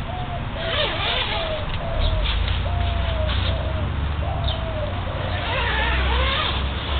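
A bird calling outside in a run of short, clear notes, one every half second or so. Nylon tent fabric rustles as the door panel is rolled up, about a second in and again near the end.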